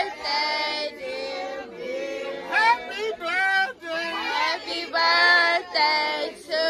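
Several people singing together without instruments, voices rising and falling through a melody with short breaks between phrases.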